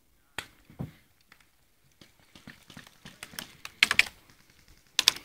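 Airsoft guns firing: irregular sharp cracks, a few single shots and then a quick cluster of shots about four seconds in, with a double crack near the end.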